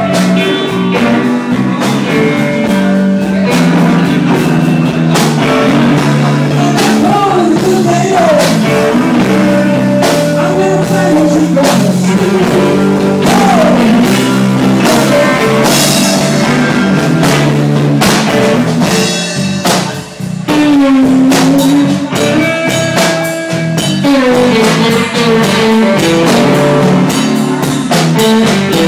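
Live blues band playing: electric guitar lead with bent, sliding notes over bass and a drum kit, with a short drop in level about twenty seconds in.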